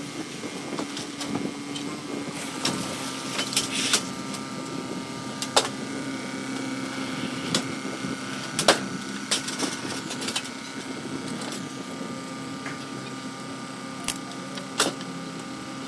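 A steady engine hum from an idling vehicle. Irregular sharp clicks and knocks, about a dozen, come from handling the truck's curtain side and its load.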